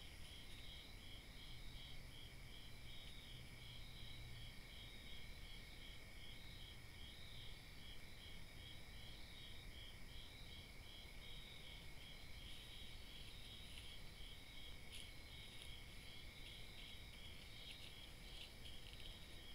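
Faint night insects: a cricket chirping in an even rhythm of about two and a half chirps a second, over steady high-pitched insect trills.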